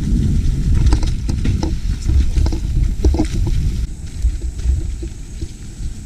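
Mountain bike riding down a rough singletrack, heard from a camera mounted on the rider or bike: a heavy rumble of tyres and frame over roots and rocks, with sharp clattering knocks, easing off about four seconds in.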